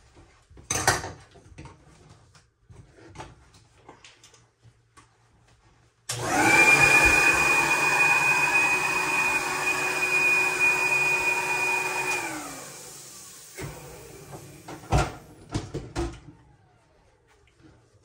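Orange portable vacuum with a hose switched on suddenly, its motor running with a steady high whine for about six seconds, then switched off and winding down with a falling pitch. Sharp knocks before and after it.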